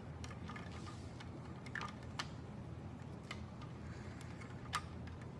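Scattered light clicks of plastic Lego bricks being handled and pressed into place, about half a dozen spread unevenly, the sharpest one near the end.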